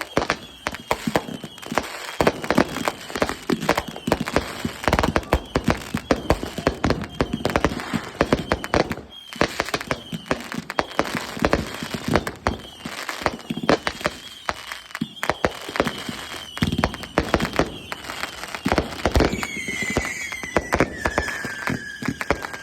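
Consumer fireworks going off in quick succession: a dense, continuous run of bangs and crackles, with short whistling tones throughout and a longer falling whistle near the end.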